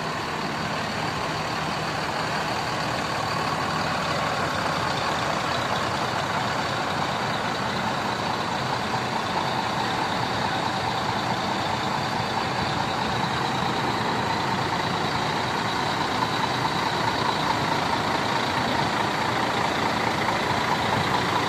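Large diesel coach engines idling, a steady unbroken running noise with faint steady whines above it.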